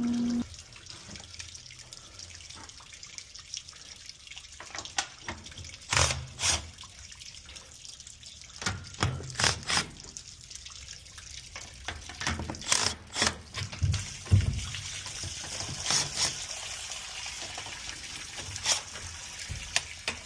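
Water from a leaking boiler running and dripping in a steady hiss, broken by scattered sharp knocks and a few low thuds.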